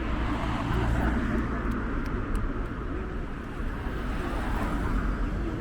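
City street ambience: a steady rumble of passing road traffic, with a few faint ticks.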